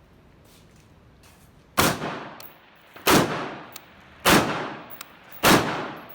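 Semi-automatic AR-15 rifle (an M16A1/SP-1-style build with a C7 upper) firing four single shots at a slow, even pace about 1.2 seconds apart, starting a little under two seconds in. Each shot rings out with a fading echo.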